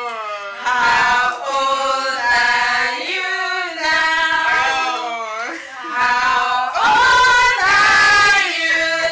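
A group of voices singing together, with long held notes that slide up and down in pitch.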